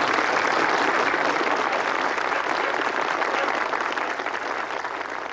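Audience applauding at the end of a speech, the clapping dying away slowly near the end.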